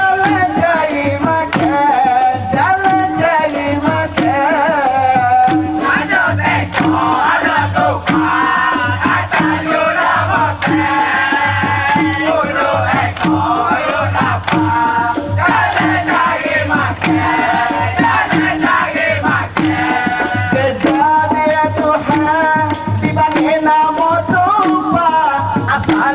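Live band playing a song, with shaken rattle percussion keeping a steady beat of about two strokes a second under a wavering melody line.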